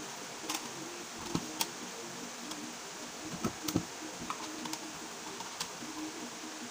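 Plastic clicks and taps as a ring light is handled and fitted onto a tripod's mounting head, scattered irregularly, the loudest pair about three and a half seconds in.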